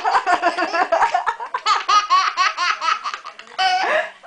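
A baby laughing hard, a belly laugh in a long run of rapid, high-pitched bursts, with a brief catch of breath about three and a half seconds in before the laughter picks up again.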